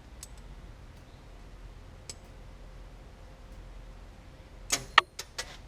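A few faint ticks, then a quick run of four or five sharp metallic clicks and clinks near the end, from hand-handling the truck's door handle hardware and clip.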